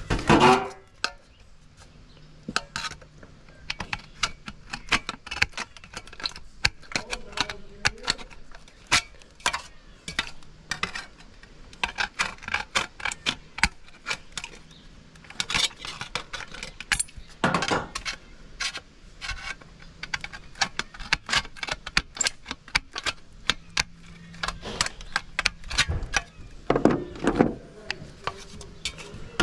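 Irregular clicking and clattering of small metal parts being handled during sheet-metal vent work, with a few louder knocks.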